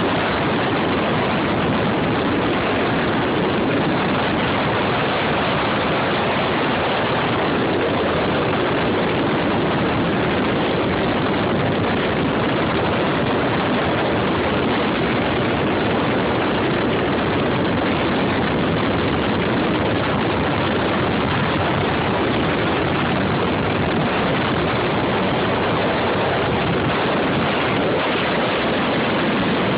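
Jet ski running under way, its engine noise mixed with rushing water, loud and steady throughout.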